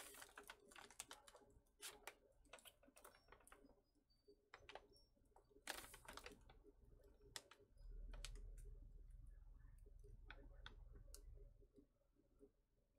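Faint crinkling and crackling of MRE plastic pouches and paper packaging being handled, as scattered irregular clicks and rustles. A low rumble joins in for about three seconds past the middle.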